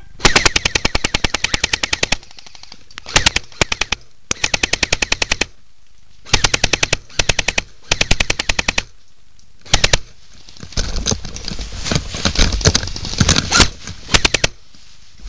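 Airsoft gun firing in repeated full-auto bursts, a rapid even rattle of about fourteen shots a second broken by short pauses. The rattle turns into a more ragged, denser clatter of shots near the end.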